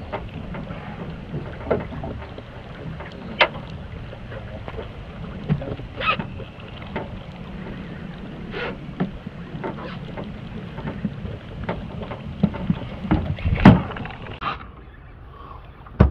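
Low, steady rumble of wind on the microphone in an open fishing boat, with scattered knocks and clicks of gear in the boat; the loudest is a sharp knock near the end.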